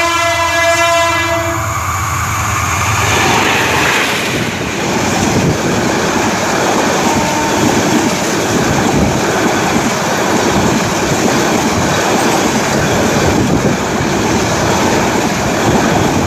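Bangladesh Railway diesel locomotive's horn sounding, cutting off a little under two seconds in. It is followed by the loud, steady rush and rattle of the intercity passenger train's coaches passing close by at speed.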